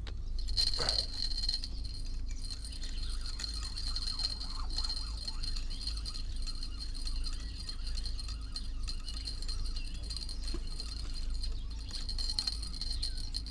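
Small bite bells on the fishing rod tips jingling almost without pause in a high, tinkling band, over a steady low rumble of wind on the microphone.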